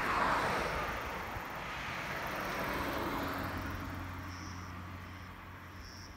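A car passing on the adjacent road, its tyre and engine noise loudest at the start and fading away. Short insect chirps come in near the end.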